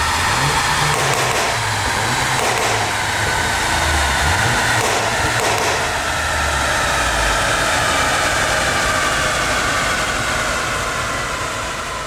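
Volkswagen Golf 7 GTI's turbocharged 2.0-litre four-cylinder running on a chassis dyno through a Clubsport S cat-back exhaust: a steady, dense engine noise whose pitch sinks slowly, easing off a little near the end.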